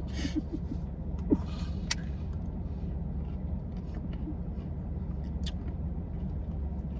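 Steady low rumble with a few brief rustles and clicks in the first two seconds.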